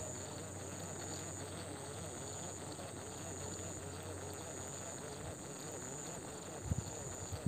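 Insects chirring in a steady high trill that pauses and resumes, over a low background hum; a few low bumps near the end.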